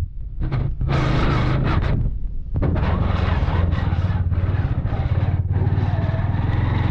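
Motorcycle engine running steadily while riding, with wind rushing over the microphone; the wind rush drops out briefly twice in the first three seconds.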